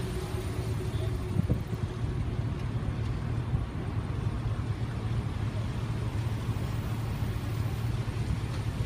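Engines and tyres of full-size pickup trucks (a Chevrolet Silverado, then a Ford F-150) rolling slowly past close by in a line of traffic: a steady low engine hum.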